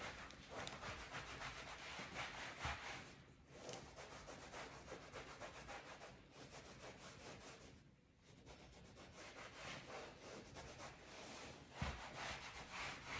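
Leather couch upholstery being wiped by hand, quick rubbing strokes working a cleaning and protecting product into the leather, with brief pauses about three and eight seconds in.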